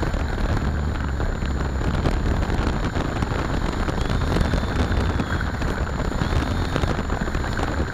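Electric Art-Tech Cessna 182 RC plane's motor running steadily with its propeller spinning, the prop wash buffeting the microphone of a small camera mounted under the wing as a heavy rumbling rush, with a faint steady high whine over it.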